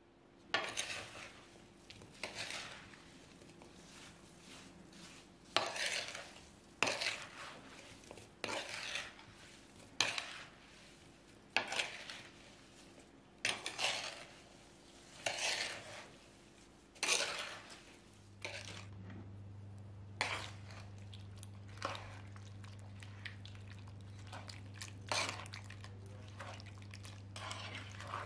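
Metal spoon stirring diced watermelon rind and sugar in a bamboo bowl, scraping and clinking against the bowl in repeated strokes every second or two. About two-thirds of the way in, a steady low hum starts, and the strokes go on more faintly over it.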